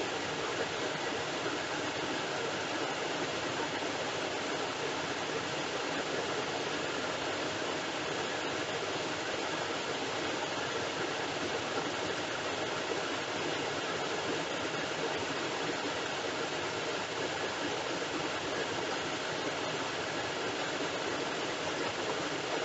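Steady, even hiss of an air traffic control radio recording, with no transmission on the frequency.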